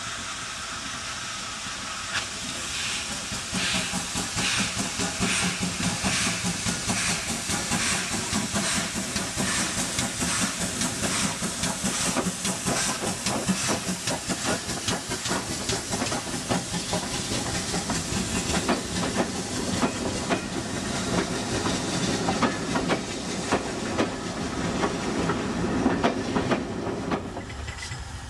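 GWR 2884-class 2-8-0 steam locomotive 3802 working past with a train of coaches: steady exhaust beats over the hiss of steam, getting louder about two seconds in as it nears, then the rumble and clatter of the coaches' wheels on the rails as they pass.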